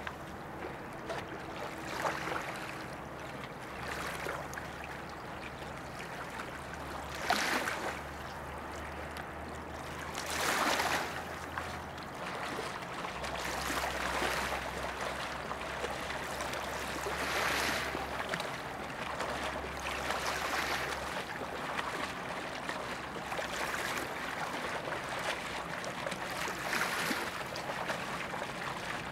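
River water lapping and splashing, swelling briefly about every three seconds over a steady wash of moving water.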